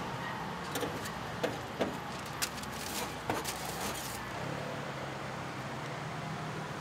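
Metal tongs clicking and clacking against a steel tray and bread rolls, about half a dozen sharp clicks in the first three and a half seconds, over a steady background hum.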